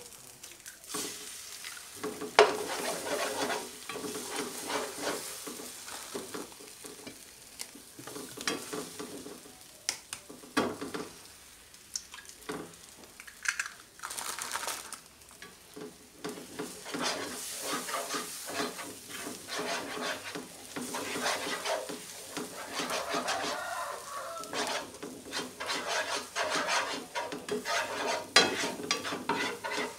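An egg frying in hot oil in a non-stick pan with chopped chillies, shallots and spring onions: a sharp hit about two seconds in as it goes into the pan, then steady sizzling. A spatula stirs and scrapes against the pan throughout, more busily near the end as the egg is scrambled.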